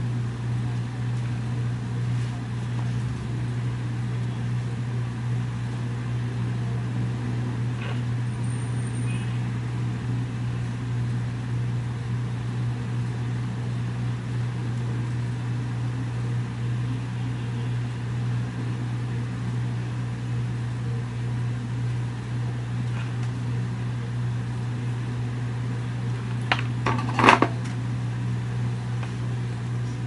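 Steady low hum, with a short cluster of sharp clicks near the end.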